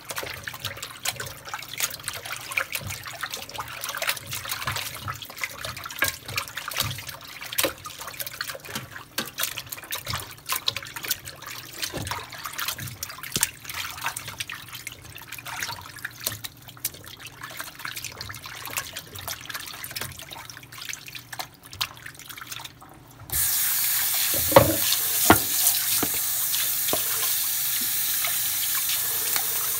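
Hands scrubbing and sloshing raw meat in a sink of salted cold water, with irregular small splashes and knocks, to clean the slime off. About 23 seconds in, a kitchen faucet is turned on and runs steadily. The running tap is the loudest part.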